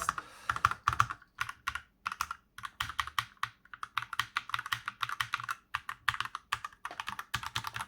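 Typing on an Akko 3068B Plus mechanical keyboard with linear switches and PBT keycaps: rapid runs of keystroke clicks, with a short pause about two seconds in.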